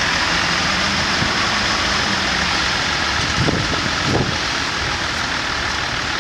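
Steady city street traffic noise, a constant hiss, with a faint low hum in the first half and two brief low sounds about halfway through.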